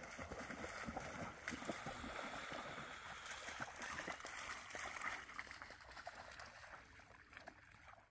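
A dog splashing as it wades and runs through shallow lake water, a steady run of small splashes that fades out near the end.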